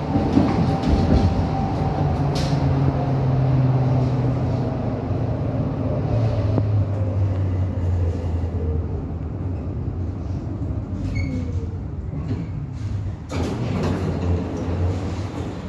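Tram running on rails, heard from inside the car: a steady low rumble and hum of wheels and running gear, with the traction motor's whine slowly falling in pitch as the tram slows for a stop. A short knock comes about 13 seconds in.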